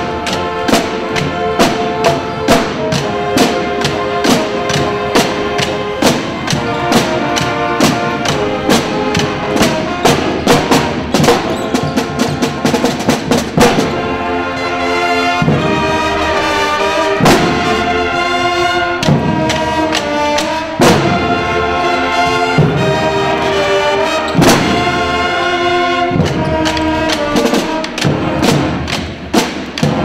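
A school pep band playing a brass tune of trumpets, trombones and saxophones over snare and bass drums with a steady beat. From about midway the horns hold longer chords between the drum hits.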